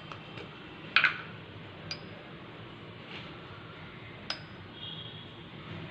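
A few sharp, light clicks from kitchen utensils being handled while ground pepper is added to two glasses: one about a second in, a smaller one just before two seconds, and another past four seconds, over a faint steady hum.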